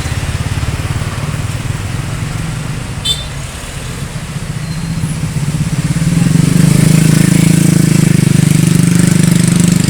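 Tour bus diesel engine running close by, a low pulsing rumble that grows louder about six seconds in.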